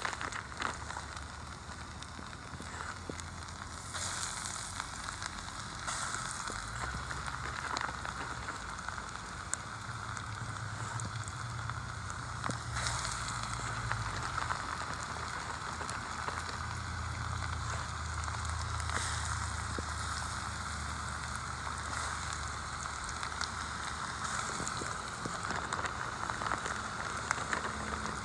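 Hot oil sizzling and crackling steadily in a pan as battered pieces of beaver meat deep-fry.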